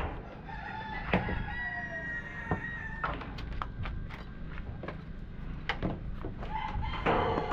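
A rooster crowing once, a long call of about two and a half seconds that sags a little in pitch at its end. A few sharp knocks are heard around it.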